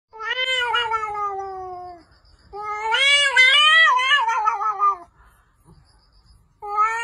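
A cat yowling in long, drawn-out calls: three of them, the first sliding slowly down in pitch, the second wavering up and down, the third starting near the end.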